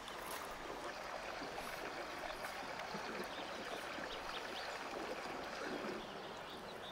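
Steady rushing outdoor background noise like running water, with faint scattered clicks; it drops slightly about six seconds in.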